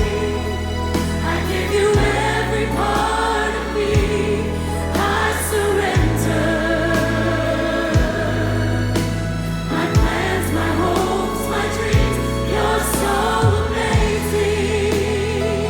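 Gospel choir singing a slow worship ballad with instrumental accompaniment, the low chords changing about every two seconds.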